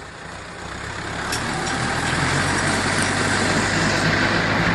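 Tractor running a PTO-driven round hay baler: a steady engine hum with machinery noise over it, growing louder over about two seconds and then holding steady.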